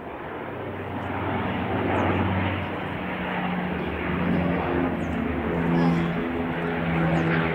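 Canadair firefighting water bomber's twin propeller engines droning steadily as it passes low over the fire, growing louder after about a second.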